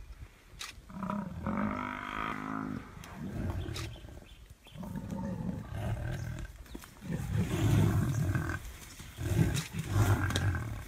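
Lions growling in about five low bursts of a second or two each, the loudest near the end, as they attack a Cape buffalo.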